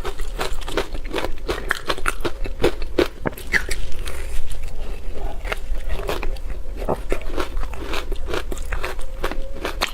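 A person biting and chewing ice, with a dense run of sharp crunching cracks several times a second.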